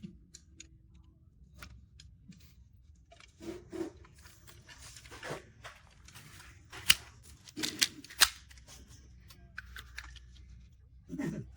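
Plastic Transformers action figure being handled: scattered light clicks and rustles, with a few sharp plastic clicks in the second half.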